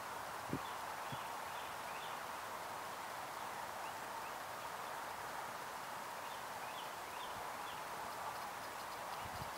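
Quiet outdoor ambience: a steady background hiss, faint bird chirps now and then, and a soft knock about half a second in.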